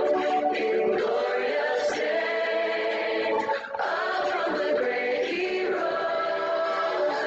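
Choir singing sustained chords in harmony, with a brief break between phrases a little past halfway.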